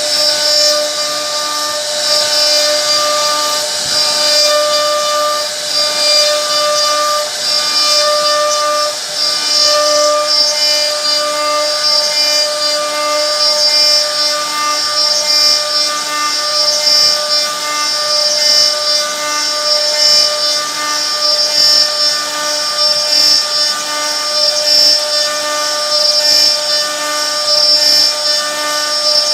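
CNC router spindle running with a steady whine while its bit cuts into a wooden board, the cutting noise wavering slightly as it carves.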